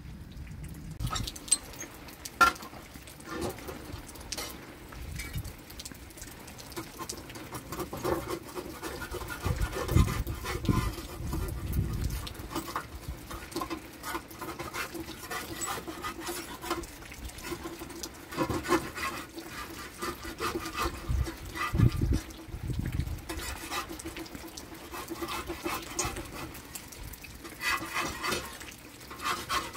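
Wood fire crackling under a domed iron griddle, with scrapes and taps of a metal spatula as flatbread is turned on it. A few low thumps come through around the middle and again about two-thirds of the way in.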